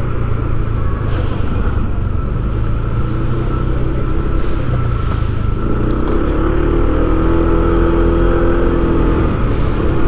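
Motorcycle engine running steadily while being ridden, with a higher engine note coming in about six seconds in.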